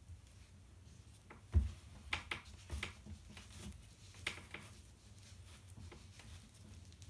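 Hands smoothing and pulling cross-stitch fabric stretched on a wooden scroll frame: soft scattered rustles and light ticks, with a dull thump about a second and a half in.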